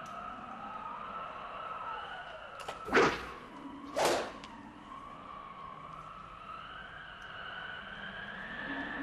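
A wailing siren, its pitch rising and falling slowly, with two loud, short noises about a second apart near the middle.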